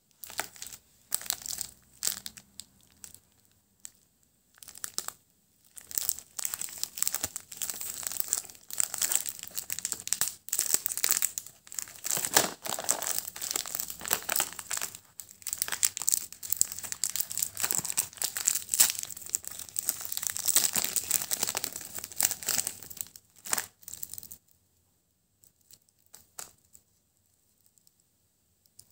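Plastic candy-bar wrapper crinkling and tearing as it is pulled open by hand, in irregular bursts of rustling. It stops about four-fifths of the way through, leaving only a few faint clicks.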